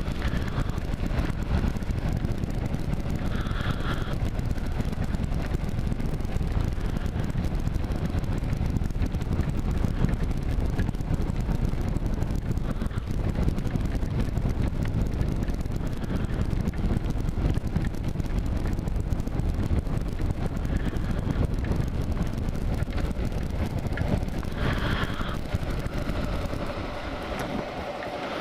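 Wind buffeting the microphone over the steady running of a 2009 Kawasaki KLR 650's single-cylinder engine while riding. Near the end the rumble eases off as the bike slows.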